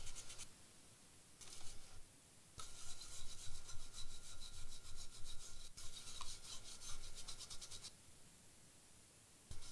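Toothbrush bristles scrubbing a liquid-damaged laptop motherboard: rapid short strokes in several bursts, the longest lasting about five seconds, with brief pauses between.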